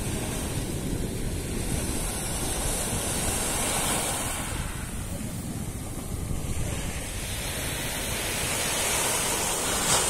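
Small sea waves breaking and washing up on a sandy beach. The hiss of the surf swells twice, about three seconds in and again near the end, over a steady low rumble of wind on the microphone.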